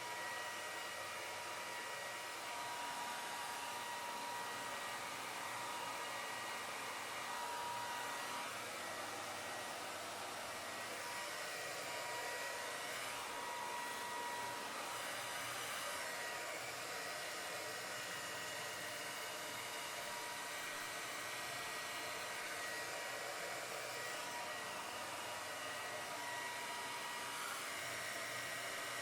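Handheld hair dryer running steadily: an even rush of blown air with a constant whine from its motor.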